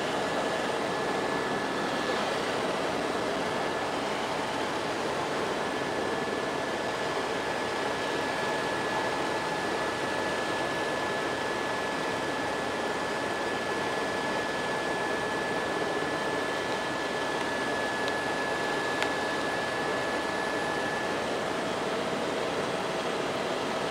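Helicopter engine and rotor noise heard inside the cabin: a steady, even drone with a thin high whine held throughout.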